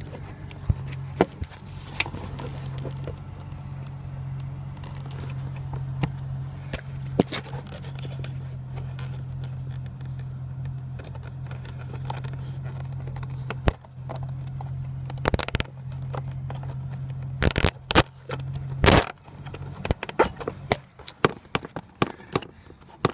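Plastic zip ties being worked through punched holes in a stiff leather saddlebag: scraping and crackling handling sounds with scattered small clicks, over a steady low hum. Several louder knocks and bumps come in the last third.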